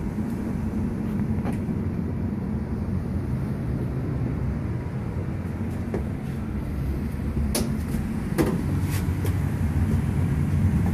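Newly installed American Standard 120,000 BTU gas furnace running with its heat on: a steady low hum, with a few light clicks about two-thirds of the way through.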